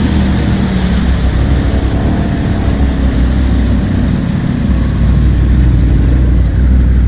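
ATV engine running steadily under load while ploughing through deep floodwater, with water churning and spraying off the wheels.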